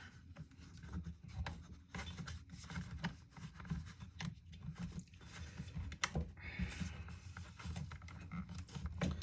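Remington RM4620 chainsaw's housing being handled and fitted back onto the saw: an irregular run of small clicks, knocks and scrapes, with one sharper click about six seconds in.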